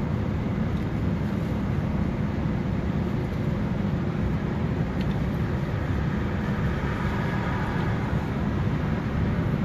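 Steady, mostly low-pitched road and engine noise heard inside the cabin of a moving car.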